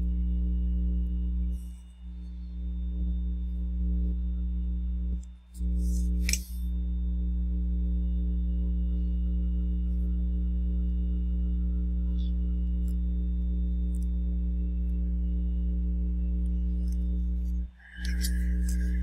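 Steady low electrical-sounding hum made of several even pitches. It cuts out briefly about two, five and a half, six and a half and eighteen seconds in. A sharp click comes about six seconds in, with a few fainter ticks.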